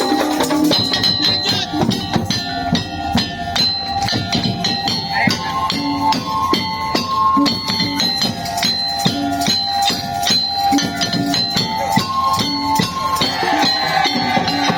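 Music: a melody of held notes over busy, regular percussion with a shaker.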